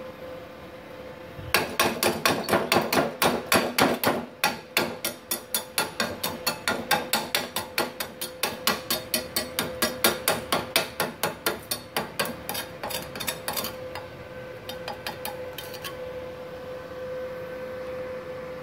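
A hammer striking freshly stick-welded steel plates: rapid, sharp metal-on-metal blows at about four a second for some ten seconds, then a few lighter taps.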